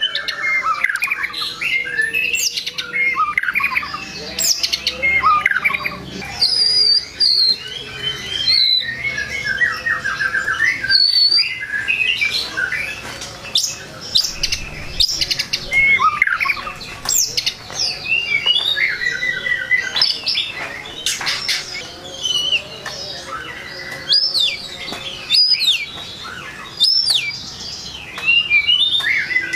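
White-rumped shama (murai batu) singing without pause, a fast, varied run of whistled notes that sweep up and down in pitch, with sharp clicks between phrases.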